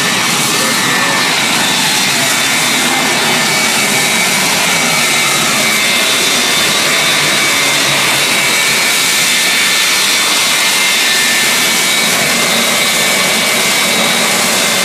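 The Shockwave jet truck's three Pratt & Whitney J34 turbojet engines running loud and steady, with a steady high whine over the jet noise.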